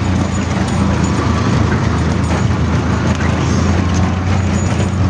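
Auto-rickshaw engine running steadily under way, a low drone heard from inside the open cab, mixed with the dense rattle and road noise of driving over a rough dirt track.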